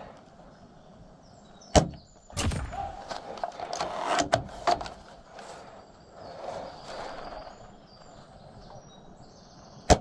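A sharp snap about two seconds in, then a run of short mechanical clacks and sliding sounds over the next few seconds, and another sharp snap at the very end. This fits a VSR-10 spring bolt-action airsoft rifle being fired, its bolt worked to recock, and fired again.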